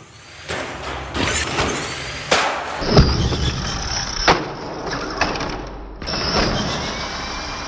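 Radio-controlled monster truck running and spinning its wheels across a hard floor, with several sharp knocks as it lands and tumbles after jumping off a ramp.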